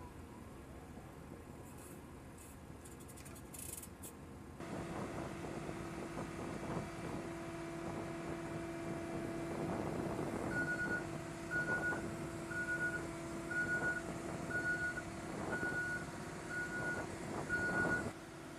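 Deck crane's engine running steadily, starting about five seconds in. From about ten seconds in, its motion-warning beeper sounds about once a second, with a few clanks of the load and chain.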